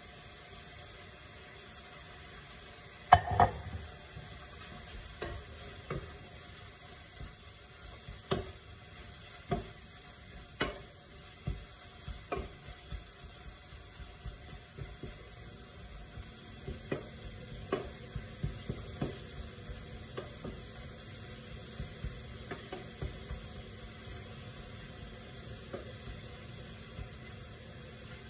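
A wooden spatula stirring chopped greens in a frying pan, knocking and scraping against the pan every second or so, over a faint steady sizzle. There is a sharp, loud knock about three seconds in, and the knocks come faster in the second half.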